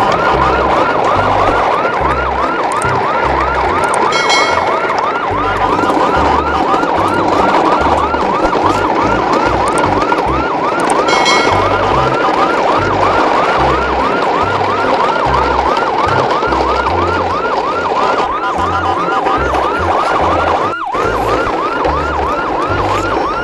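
An electronic yelp siren wailing rapidly up and down, about three sweeps a second, with a low irregular pulsing underneath.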